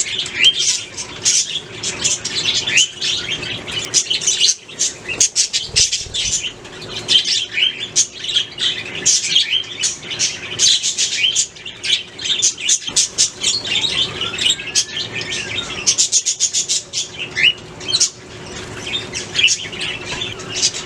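A flock of budgies chirping and warbling in a rapid, continuous chatter of short high chirps.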